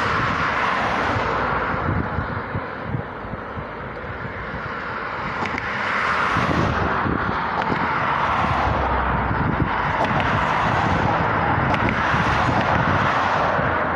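Road traffic passing on a bridge, the tyre and engine noise swelling and fading every few seconds, with wind buffeting the microphone.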